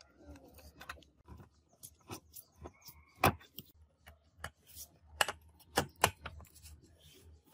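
Irregular sharp metal clicks and taps as a tool and control hardware knock against an amplifier's metal front panel while the tone and volume controls are refitted. The loudest clicks come a little over three seconds in and again twice around six seconds in.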